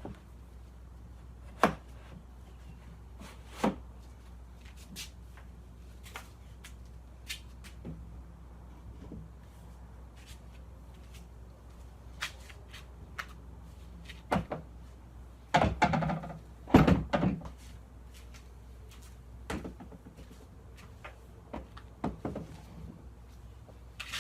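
Scattered knocks and clunks of wooden Muskoka chair parts being handled and shifted into place, with a louder cluster of clattering about two-thirds of the way through.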